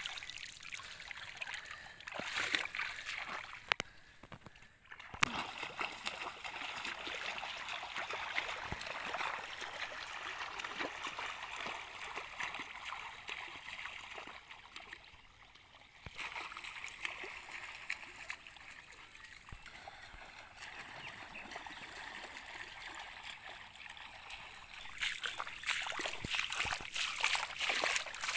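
Shallow muddy water splashing and trickling as a bamboo-framed mosquito-net push net is dragged and lifted through a flooded rice paddy, louder and choppier near the end.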